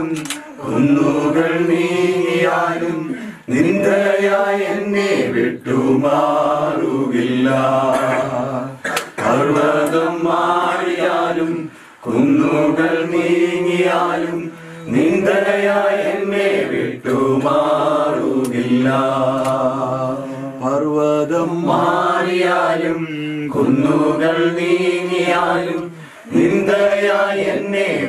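A small group of men and women singing a hymn together in long, slow phrases a few seconds apart.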